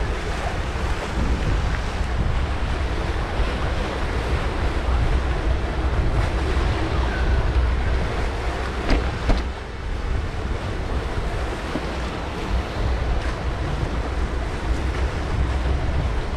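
Wind buffeting a moving GoPro's microphone, a steady low rumble, with waves splashing against a concrete seawall. Two sharp knocks come about nine seconds in.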